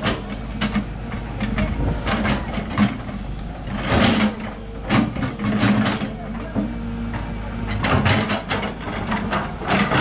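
Backhoe engine running steadily, with repeated knocks and clanks over it.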